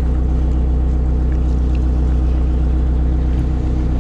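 Engine idling steadily with a deep, even hum, unchanged throughout.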